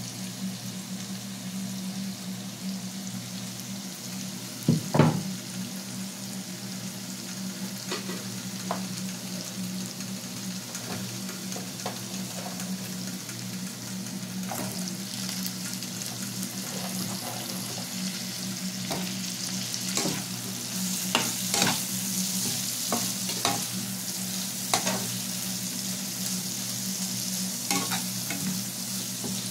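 Sliced onions and vegetables sizzling in oil in a frying pan, stirred with a metal slotted spatula that knocks and scrapes against the pan every second or two. A loud knock comes about five seconds in, and the sizzle grows stronger in the second half, over a steady low hum.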